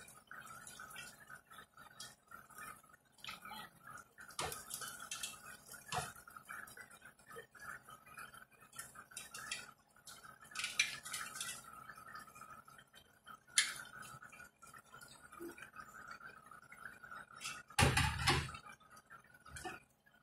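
Sliced vegetables dropped into a large pot of simmering pakbet, with scattered clinks and knocks of a metal utensil against the pan and one louder clatter near the end.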